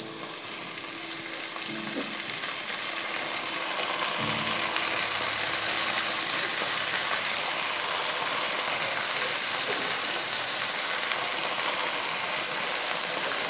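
Potatoes frying in hot oil, sizzling steadily under a heap of freshly added chopped fenugreek leaves. The sizzle builds over the first few seconds, then holds.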